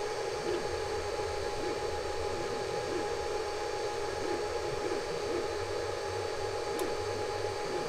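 Desktop FDM 3D printer running mid-print: a steady whir from its cooling fans with a faint steady tone and a low hum underneath.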